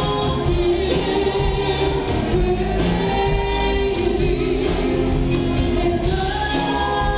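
Irish/Celtic folk band playing live through a PA system, with sung vocals over the instruments and a steady drum beat.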